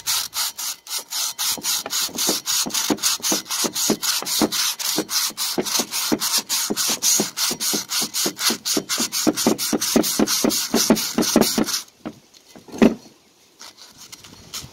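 120-grit sandpaper rubbed by hand in quick back-and-forth strokes, about four a second, against the rusty inside of an ATV front brake drum, scuffing the rust off the braking surface so the brakes can grip again. The strokes stop near the end, followed by a single knock.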